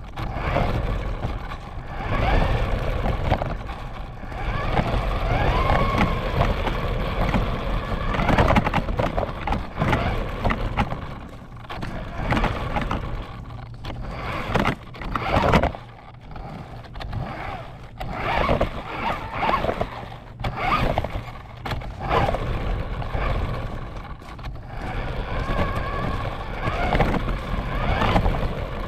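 RC car driving, heard from a camera mounted on the car: its motor whines, rising and falling in pitch with the throttle, over the rumble and scrape of the wheels and chassis on the ground.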